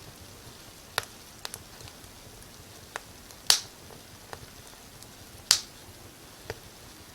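Wood fire crackling in a fireplace: sharp, irregular pops and snaps, two of them louder, over a faint steady hiss.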